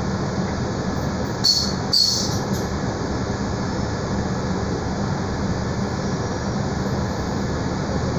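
Mercedes-Benz O-500U city bus heard from inside its cabin, its diesel engine idling with a steady low hum. Two short high-pitched squeaks come about a second and a half and two seconds in.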